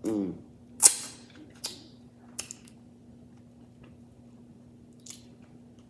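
Close-up eating of crab legs: a few sharp, isolated clicks and cracks of shell and mouth, the loudest about a second in, after a brief hummed 'mm' at the start. A steady low electrical hum runs underneath.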